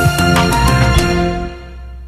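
Background music with drum hits that drops away about one and a half seconds in and starts fading out.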